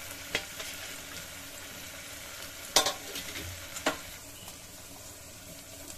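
Onion, tomato and coconut frying in oil in an open pressure cooker, a steady soft sizzle. A few sharp clicks sound over it, the loudest about three seconds in.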